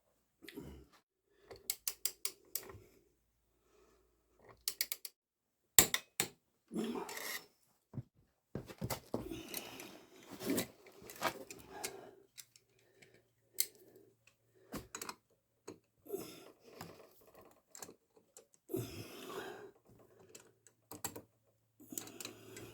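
Metal clutch parts and hand tools being handled: an irregular run of sharp clicks and clinks, with scraping and rustling in between, as a Yamaha XJ600 S clutch is reassembled. The loudest single click comes about six seconds in.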